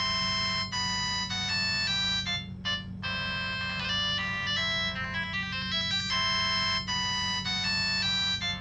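Samsung SGH-T108 mobile phone's original polyphonic ringtone playing, a synthesized electronic melody of short sustained notes over a steady low hum.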